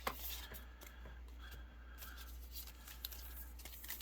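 Faint rustle and light clicks of trading cards being handled and slid one behind another, with a sharper click at the start.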